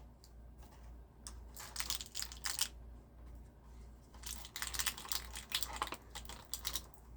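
Small plastic model-kit parts and their plastic bags being handled and taken out of the box: irregular light clicks, taps and crinkling, in two bursts with a pause in the middle.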